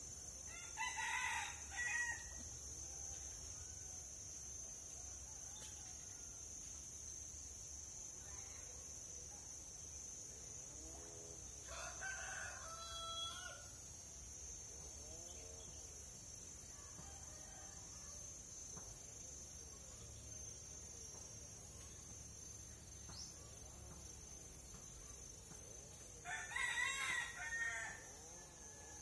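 A rooster crowing three times: about a second in, midway through, and near the end. A steady high whine runs underneath.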